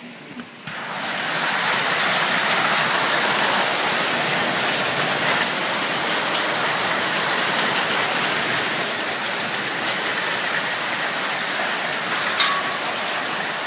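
Hailstorm: hail and rain pelting down in a dense, steady patter with scattered sharper ticks, starting suddenly about a second in.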